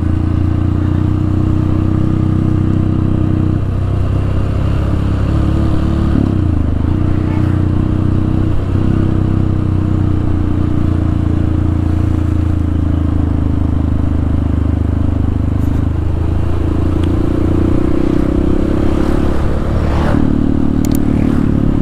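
Motorcycle engine running steadily while riding along a road, with a couple of brief dips in pitch about a third of the way through as the throttle eases.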